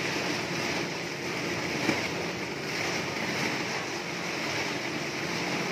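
Depackaging machine running steadily, separating plastic wrappers from expired biscuits and chips, with a continuous rushing mechanical noise. A single short knock comes about two seconds in.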